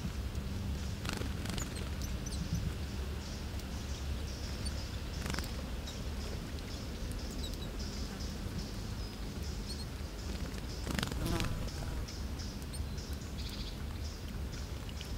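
A songbird bathing in shallow water, with a few brief splashes as it dips and flicks its wings, about a second in, in the middle and near the end. Faint high chirps of other birds and a steady low hum run underneath.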